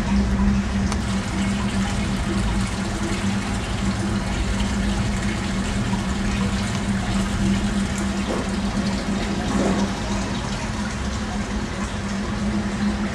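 Steady splashing of water from a garden fountain, spilling from an urn into a stone basin, over a steady low hum.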